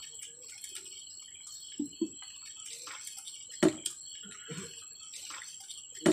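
Small smacking and clicking sounds of eating rice and chicken curry by hand: fingers working the rice on the plate and chewing. The loudest click comes about three and a half seconds in.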